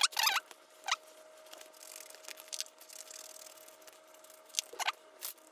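Work sounds played back at eight times speed: handling and scissor-cutting of a plastic guard-sticker sheet turned into short squeaky chirps, the loudest right at the start and another near the end, over faint rustling and a steady high hum.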